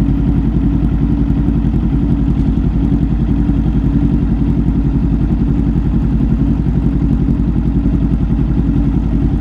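Sport motorcycle engine idling steadily, heard close up from the bike's own fuel tank.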